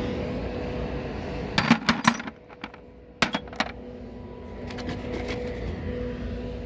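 Small brass fittings dropped into an empty plastic bucket: two quick clusters of sharp metallic clinks with a short ring, about a second and a half apart, then a few fainter taps. A steady low hum runs underneath.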